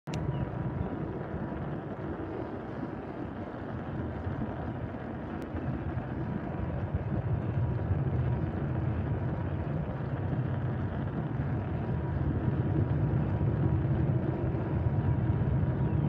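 Diesel locomotives of an approaching freight train, a Union Pacific AC44CWCTE leading an SD70M, heard as a steady low engine rumble that grows louder as the train draws nearer.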